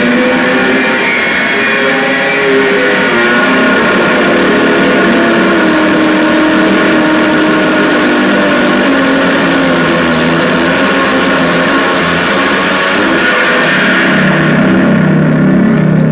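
Homemade electric spring instrument, metal springs stretched over guitar pickups and worked by hand and a small motor, producing a loud, dense, distorted noise drone with held pitches that slowly shift. Near the end the high end falls away into a low buzz, then the sound cuts off suddenly.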